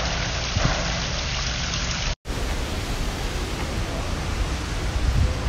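Steady rushing of water at a koi pond. About two seconds in it cuts off abruptly to a different steady outdoor hiss, with a low rumble building near the end.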